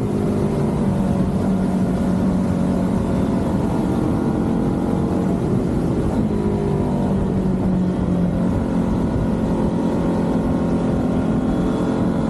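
Motorcycle engine running under way at a steady speed over a constant rush of noise. The engine pitch briefly dips and climbs again near the start and about six seconds in.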